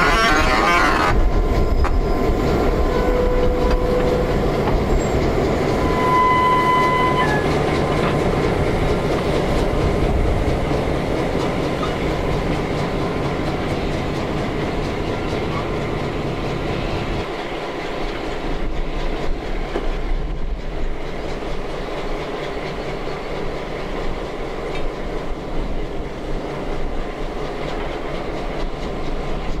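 Diesel switcher locomotive moving a train slowly: engine rumble with wheels running on the rails, and a couple of short wheel squeals a few seconds in. The low engine rumble eases a little past the middle.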